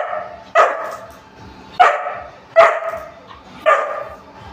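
A dog barking four times in sharp, loud barks at an uneven pace, excited and demanding its dinner.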